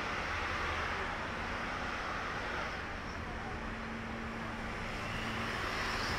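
Ocean surf washing steadily onto a sandy beach, an even hiss of breaking waves. A faint low hum joins for a few seconds in the middle.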